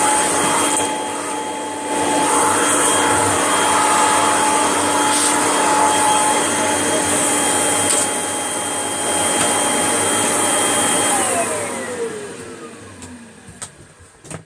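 Hoover Junior upright vacuum cleaner running with a steady motor whine. It is switched off about eleven seconds in, and the whine falls in pitch as the motor winds down.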